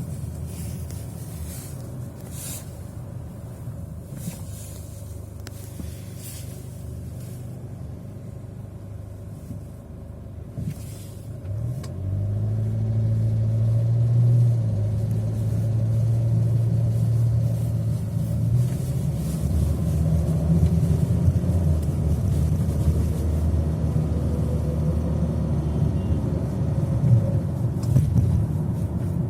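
Chevrolet Captiva's 2.2 diesel engine pulling under load while driving, with a knock in the engine bay that comes in from about 1500 rpm and ticks in time with engine speed. The engine gets louder about twelve seconds in as it pulls harder. The owner says it does not sound like the timing chain and, heard from outside, sounds like gas escaping somewhere.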